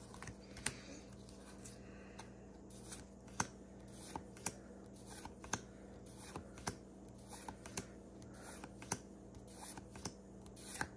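Pokémon trading cards being flipped through by hand one at a time, each card sliding off the stack with a faint sharp snap about once a second, over a steady low electrical hum.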